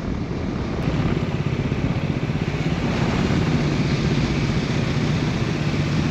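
Motorcycle engine running steadily under way at road speed, a little louder from about a second in, over a steady rush of noise.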